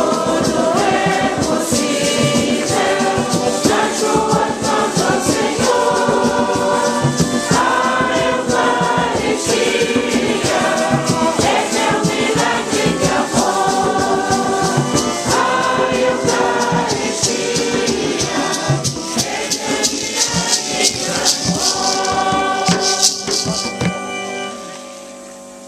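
A congregation choir sings a hymn, with bamboo-slat rattles and hand drums keeping a fast shaking beat under the voices. The singing and percussion die away near the end.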